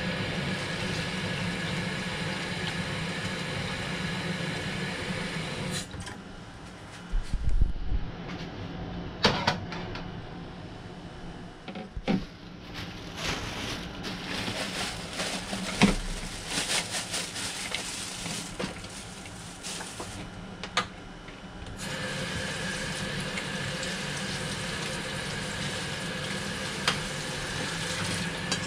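Kitchen faucet running into a saucepan and filling it. Then a plastic bag rustles, and a bowl and colander clatter and thump against the stainless-steel sink, with a few loud knocks. About 22 seconds in the tap runs again, steady, into a bowl of pickleweed.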